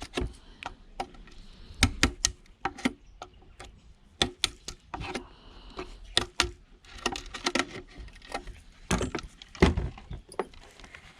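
Irregular sharp knocks and clicks, some in quick clusters: a hammer and tools being worked against the plastic casing of a Bush Bluetooth speaker to break it open.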